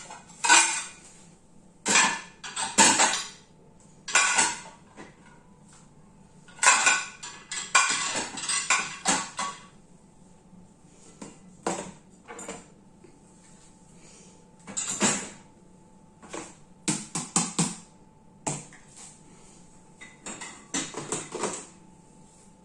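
Dishes, pots and pans clattering and knocking as they are set into dishwasher racks, in irregular bursts with short pauses between.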